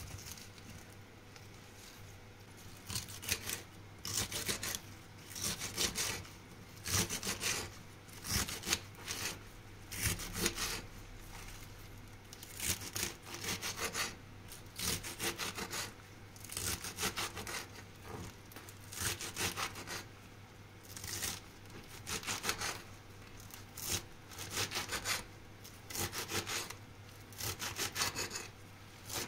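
Kitchen knife chopping fresh spinach stems on a glass cutting board: quick runs of sharp knife clicks, about one run a second, starting a few seconds in.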